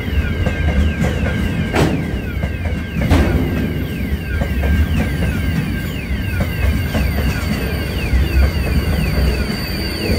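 A freight train of covered hopper wagons running past at speed. The wheels on the rails make a heavy low rumble, with repeated short falling squeals and two sharp clanks about two and three seconds in.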